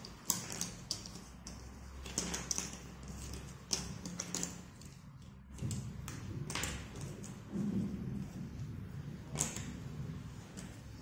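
Cardboard jigsaw puzzle pieces being handled and pressed into place on a table: irregular light clicks and taps, with some rustling.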